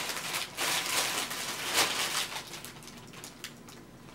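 Clear plastic poly bag crinkling and rustling as a clothing set is pulled out of it. The rustle is densest for about the first two seconds, then thins to a few soft crackles.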